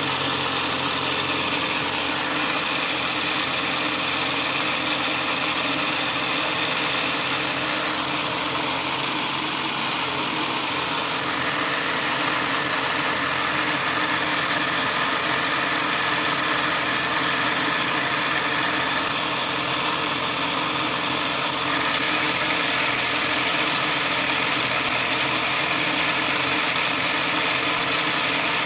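Motorized LEGO model of a Toyota 4A-GE engine running steadily: its electric motor turning the crank, 2x2 LEGO pistons and belt-driven cam pulleys, making a steady mechanical hum with several pitched tones.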